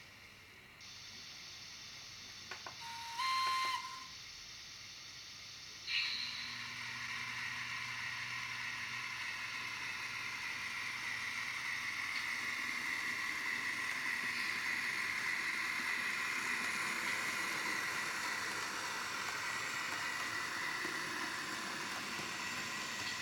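Sound from an ESU LokSound decoder in a Bemo RhB model locomotive: an air hiss, a short blip and then a horn held for about a second, then from about six seconds a steadily building motor running sound with a whine that slides slowly in pitch as the train pulls away.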